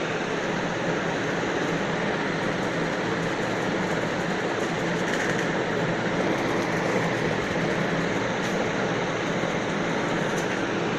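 Steady, even rushing background noise that does not change.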